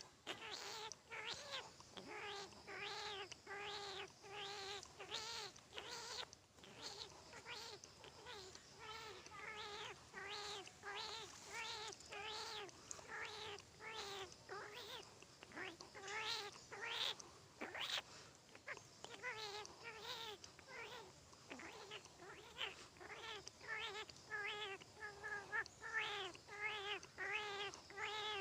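A man imitating a newborn kitten's mewing, the hungry calls of a kitten for its mother. It is a long unbroken run of short, high, wavering mews, about one and a half a second.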